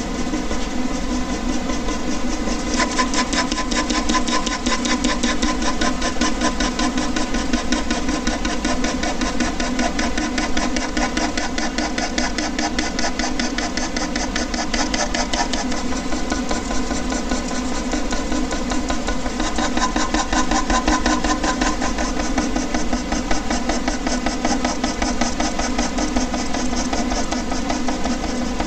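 Air conditioner running: a steady mechanical hum with a fast, even rattle that gets brighter about three seconds in.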